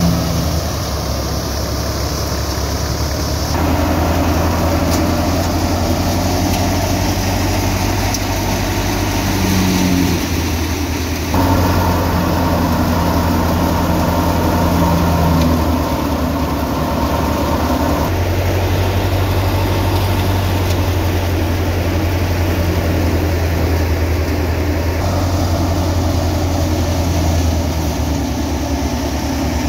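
Tractor-powered wheat thresher running steadily: the diesel tractor engine and the belt-driven threshing drum make a continuous machine hum. The sound shifts abruptly a few times.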